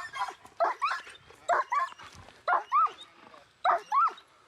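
Police K9 barking repeatedly in short, loud barks, mostly in quick pairs, while guarding a suspect on the handler's 'watch him' command.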